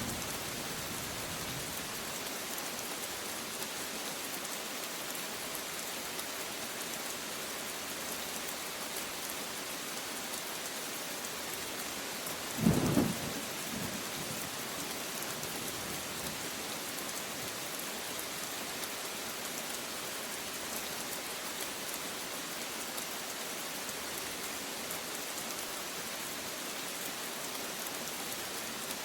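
Steady rain falling, with one short, loud clap of thunder about halfway through.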